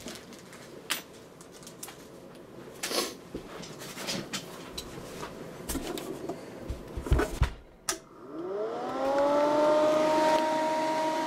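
Clicks and knocks of a metal amplifier cabinet being handled and turned over on a bench mat. About eight seconds in, a small electric motor spins up with a rising whine, settles into a steady hum, and begins to wind down near the end.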